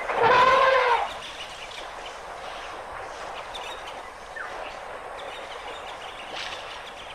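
African elephant trumpeting once, a loud call about a second long that rises and then falls in pitch. After it comes a steady outdoor hiss with a couple of faint bird chirps.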